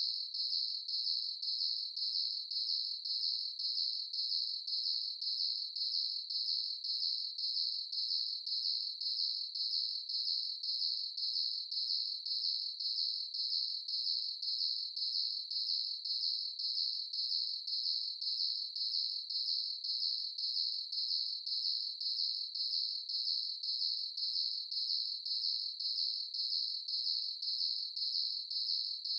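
Crickets chirping steadily in an even, unbroken rhythm of high-pitched pulses.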